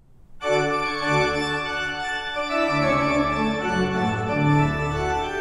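Organ music: a slow series of held chords, starting about half a second in.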